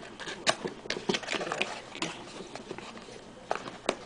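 Cardboard and plastic packaging of a CPU retail box being handled and opened: light rustling with irregular sharp clicks and snaps, the loudest about half a second in and twice near the end.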